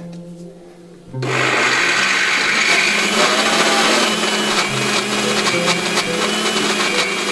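Electric spice grinder switched on about a second in, its motor running loud and steady as it grinds toasted sesame seeds toward a paste for tahini.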